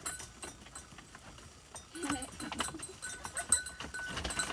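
A goat bleating briefly about two seconds in, among scattered light clicks and knocks.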